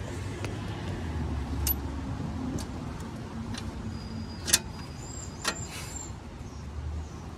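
A few sharp clicks of hand and tool contact with the sway bar end link hardware under a Toyota pickup's front suspension, the loudest about halfway through, over a low steady rumble.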